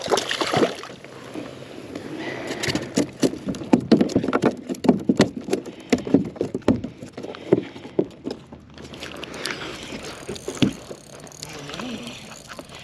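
Hooked bluefish splashing at the surface beside a kayak, then a busy run of sharp clicks and knocks for several seconds as rod and reel are handled on board.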